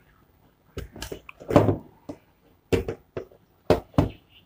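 Handling noise from a 3110 tripod being pulled out of its cloth carry bag: about six sharp knocks and clunks of its aluminium legs and plastic leg clamps, with a longer rustle of the bag near the middle.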